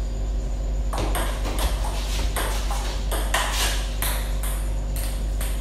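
Table tennis rally: a celluloid-type ball clicking back and forth off rubber-faced DHS Hurricane King III blades and the tabletop. A quick run of sharp clicks starts about a second in.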